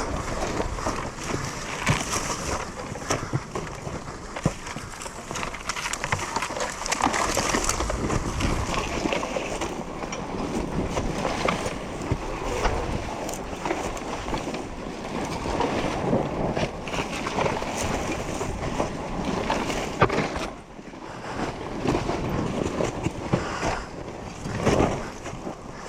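Wind buffeting the camera microphone over a Yamaha YZ250FX dirt bike's 250cc four-stroke single, with clatter and knocks from riding over rough ground.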